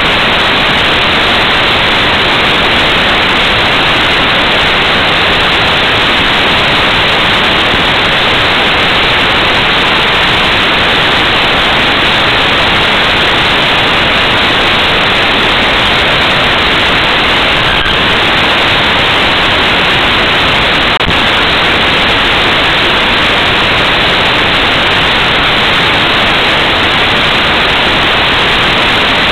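Loud steady static hiss from an 808 keychain camera's recording, unchanging throughout, with no motor or propeller tone heard through it.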